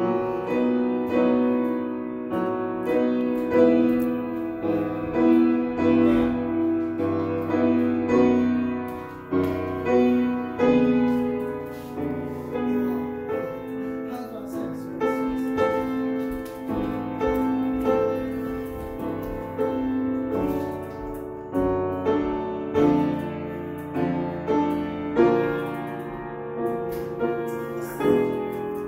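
A grand piano played solo, notes and chords struck and left to ring, mostly in the middle register, the loudness swelling and falling phrase by phrase.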